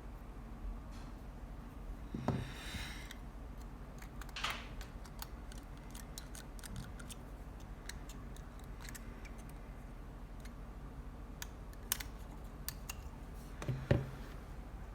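Small hand tools working on an iPhone X logic board: scattered light clicks and ticks, with a short scratchy rustle about two seconds in and another at about four and a half seconds, and sharper clicks near the end.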